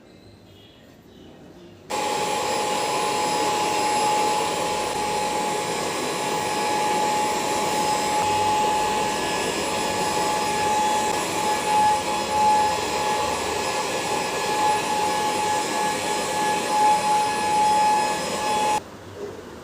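Vacuum cleaner running steadily with a constant high motor whine, starting abruptly about two seconds in and stopping abruptly near the end.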